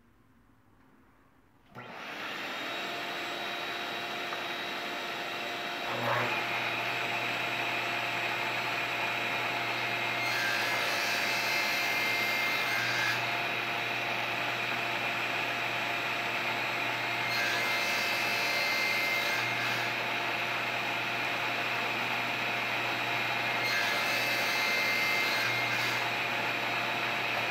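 A table saw and its dust collection start up one after the other, about two and six seconds in, and run steadily. Over this the blade crosscuts a strip of bird's eye maple on a crosscut sled three times, each cut a few seconds of sharper, higher sawing noise.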